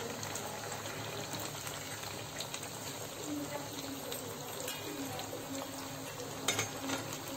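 Hot oil sizzling steadily around sama-flour pooris deep-frying in a pan, with a couple of sharp clicks about six and a half seconds in.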